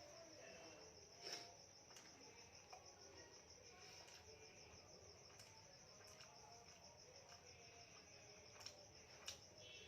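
A cricket trilling steadily in the background, faint and high-pitched, with a few soft clicks about a second in and twice near the end.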